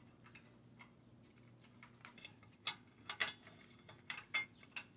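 Faint, irregular small metallic clicks and taps, most of them in the second half: bracket bolts and brackets being handled and fitted by hand, not yet tightened.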